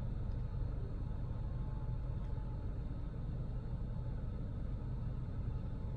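Steady low hum inside a stationary car's cabin.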